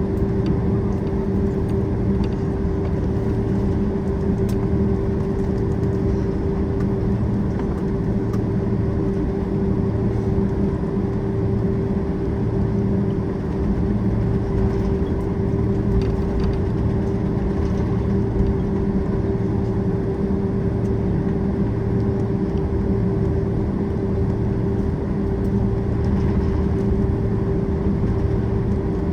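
Cabin noise of a Boeing 767-400ER taxiing on the ground: the jet engines run at low taxi thrust with a steady drone and hum. Under it a low rumble swells and eases about once a second.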